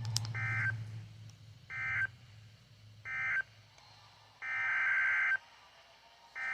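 Emergency Alert System digital data bursts. First come three short end-of-message bursts about a second apart. Then, about four and a half seconds in, a longer header burst of the next alert, with another starting near the end.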